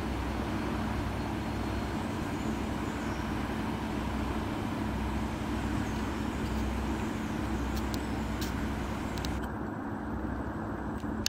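A river hotel ship's diesel engines droning steadily as it passes, a low rumble with a steady hum held on one pitch.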